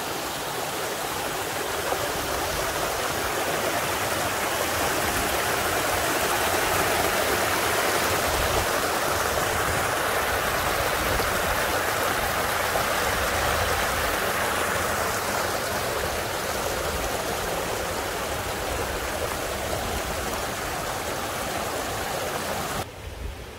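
Spring-fed mountain stream running over rocks in a small cascade: a steady rushing of water, louder in the middle, that drops away sharply near the end.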